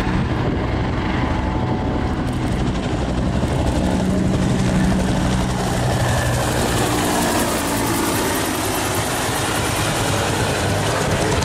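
Two JGSDF AH-1 Cobra attack helicopters flying low past in formation, a steady beat from their two-bladed main rotors with turbine engine noise. The sound grows brighter about halfway through as they pass closest.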